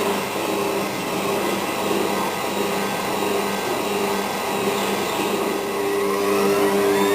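Hotpoint WM62 washing machine on spin, making a loud, rough mechanical noise over a steady hum, with a rising whine starting near the end as the drum speeds up. The owner suspects a broken drum spider and worn drum bearings.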